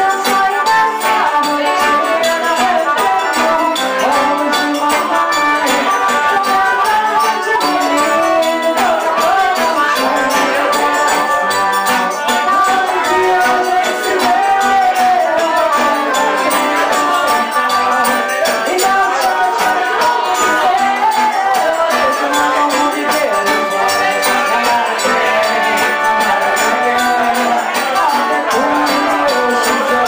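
Live forró band playing: accordion and guitar over zabumba drum and shaken hand percussion, in a steady dance rhythm.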